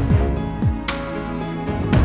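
Background music with a steady beat: a sharp hit about once a second over sustained tones, with low notes that drop in pitch.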